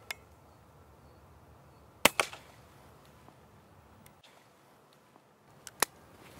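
Suppressed .22 LR rifle shots from a Chiappa Little Badger single-shot folding rifle fitted with a Huntertown Guardian 22 silencer: a sharp crack about two seconds in, followed at once by a second, smaller crack, and another near the end. A quieter pair of clicks comes at the very start.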